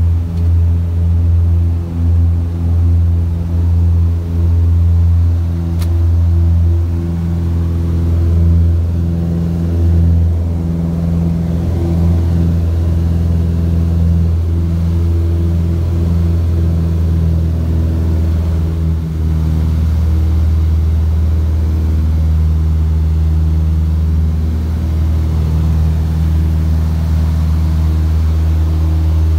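Piston engines and propellers of a light twin-engine airplane running steadily at takeoff power, heard from inside the cabin through the takeoff roll and climb-out. The engine note shifts slightly about 19 seconds in.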